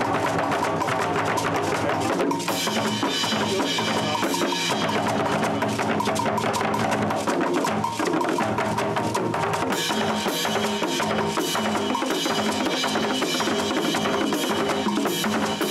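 Nigerian traditional drum ensemble playing a fast, dense rhythm on hand drums and tall wooden drums, with sharp wood-block-like clicks.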